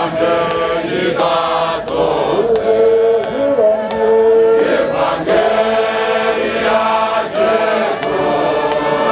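A church choir singing a hymn, many voices holding long notes together at several pitches and moving to new notes every second or two.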